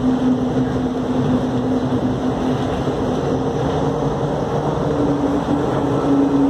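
Skylink automated people-mover train running on its elevated track: a steady rumble with a low hum that steps up a little in pitch about five seconds in.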